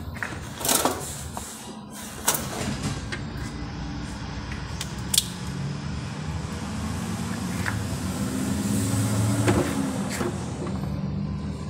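A few sharp metallic clicks and knocks of a wrench on the bolts of a car's engine breather (PCV) housing. Under them runs a low vehicle rumble that swells to its loudest about nine seconds in.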